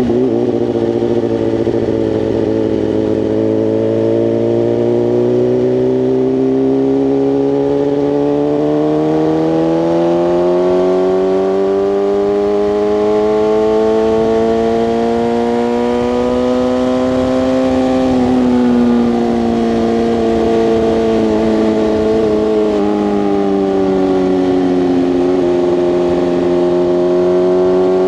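BMW S1000RR's inline-four engine pulling along on the road. The revs climb slowly for about the first fifteen seconds, ease off about two-thirds of the way through, then hold fairly steady.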